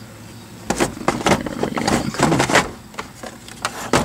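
Hard plastic clicks, knocks and rattles as a 1998 Saturn SL2's instrument cluster is worked loose and pulled out of the dashboard. There is a quick run of them from about a second in, and a few more near the end.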